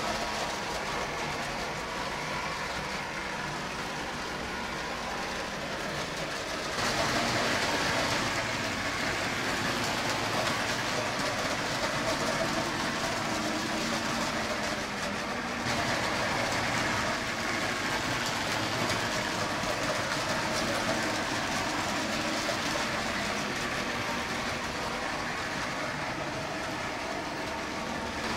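Toy trains running on their track loops: a steady whir of small electric motors mixed with the rattle of wheels over the track joints. The sound gets louder about seven seconds in, as a train comes closer.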